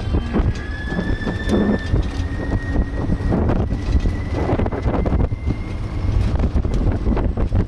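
Small open-sided sightseeing cart driving along a road: a heavy low rumble with wind buffeting the microphone and frequent small rattles and knocks. A thin high whine runs through it, creeping slightly up in pitch.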